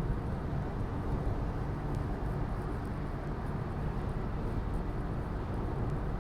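Steady low rumbling noise with no clear pitch or rhythm.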